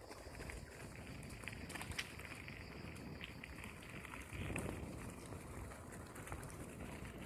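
Bicycle tyres rolling over a gravel path: a steady crunching hiss with small stones clicking, and a louder low rumble about four and a half seconds in.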